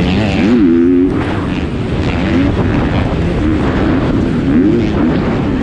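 A 250cc four-stroke motocross bike engine revving hard at race pace, its pitch rising and falling again and again with throttle and gear changes.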